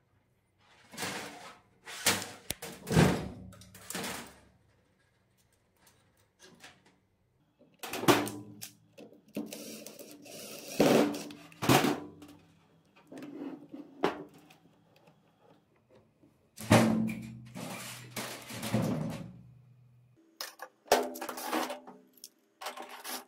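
Irregular knocks and clatter of steel wire and tools being handled against a thin aluminium boat hull, with a low metallic ring hanging on after several of the louder knocks.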